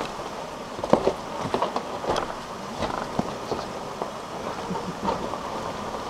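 Four-wheel drive crawling over a rough dirt bush track, heard from inside the cabin: a steady engine drone under frequent irregular knocks and rattles as the vehicle jolts over ruts and rocks.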